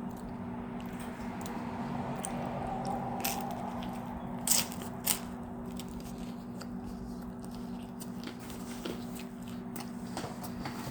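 Someone biting into and chewing crispy-crust pizza, with two sharp crunches about halfway through, over a steady low hum.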